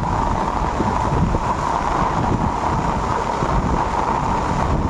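Heavy rain falling steadily on a flooded street's standing water, with wind noise on the phone's microphone.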